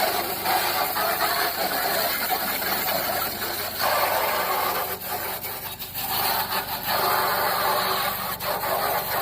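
Harsh, uneven rasping and rubbing noise from cleaning the degreased grill, with two short lulls, over a steady low engine-like hum.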